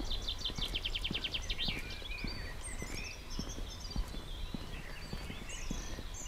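Songbirds singing: a fast trill of evenly repeated notes for the first second and a half, then scattered chirps and warbles. Beneath them, a walker's footsteps on a paved lane tap irregularly over a low steady rumble.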